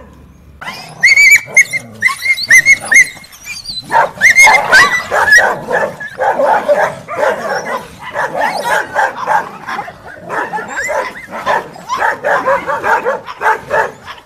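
A group of street dogs fighting. Shrill yelps start about a second in, then a dense, unbroken tangle of barking and yelping follows.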